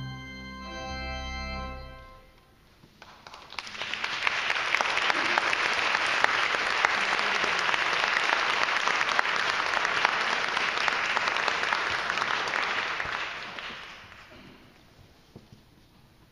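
The last chord of a choir piece with organ accompaniment rings and stops about two seconds in; after a short pause an audience applauds for about ten seconds, then the clapping fades away.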